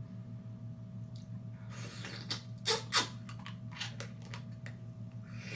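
Close-miked eating sounds: wet mouth smacks and lip pops while eating mussels, with a run of sharp smacks near the middle, the two loudest close together. A steady low hum lies underneath.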